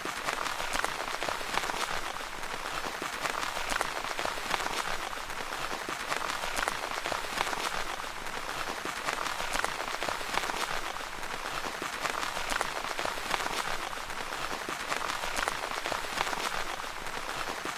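Steady rain pattering on a tent's fabric, a dense even patter of drops with no pause.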